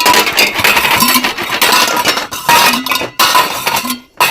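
Clinking and clattering of metal and glass cooking vessels and utensils being handled, with many short knocks.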